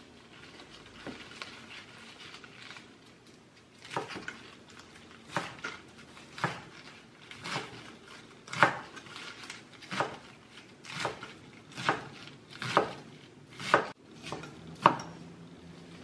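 Kitchen knife chopping on a cutting board: faint handling noise at first, then from about four seconds in a steady run of about a dozen sharp chops, roughly one a second.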